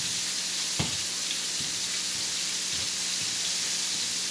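Flour-battered cube steak frying in a pan, a steady sizzle. A single knock about a second in.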